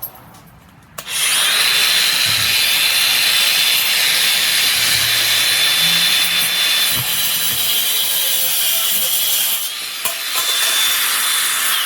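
An angle grinder starts about a second in and runs steadily against 3/16-inch round metal rod, a loud grinding hiss with a constant high whine.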